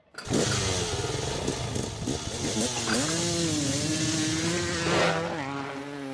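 Motorcycle engine revving, its pitch swooping up and down several times, then holding a steadier pitch and easing off near the end.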